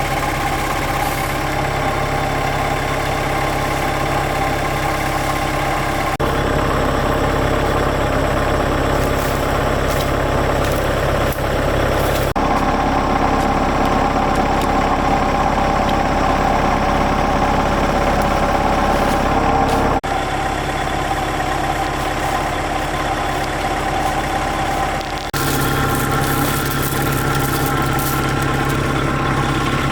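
Excavator's diesel engine running steadily, its sound changing abruptly four times.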